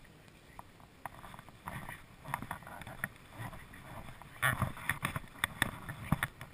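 Border Collie running across grass close to the camera: its footfalls and the rustle of grass come as irregular thuds that grow louder and quicker over the last couple of seconds as it comes near.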